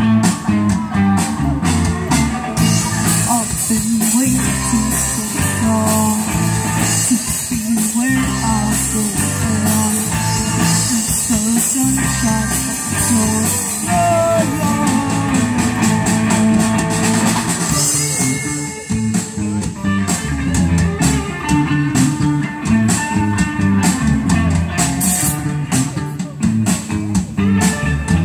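Live rock band playing: two electric guitars, electric bass and a drum kit through amplifiers, with a brief dip in loudness about two-thirds of the way through.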